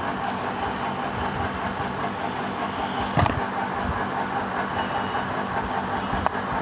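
Steady background noise with a faint hum, broken by a single knock about three seconds in and a short click near the end.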